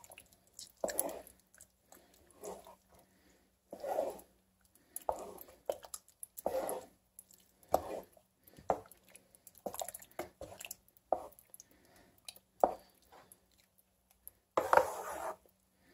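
Wooden spatula stirring thick tomato and meat sauce in a skillet: irregular wet squelching strokes about once a second, with a few sharp taps of the spatula against the pan.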